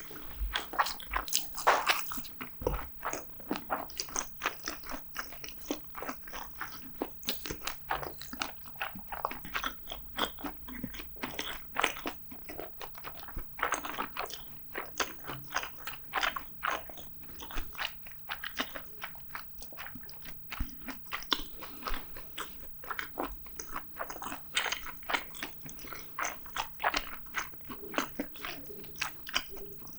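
Close-miked eating sounds: a person chewing and biting food, with a dense, irregular run of quick crunching clicks and moist mouth sounds.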